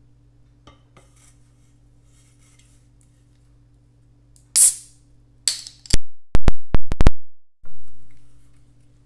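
A can of Monster Energy drink being opened by its pull tab: a sharp hiss of escaping gas about halfway through, a second shorter hiss, then a quick run of six loud clicks at the top of the can.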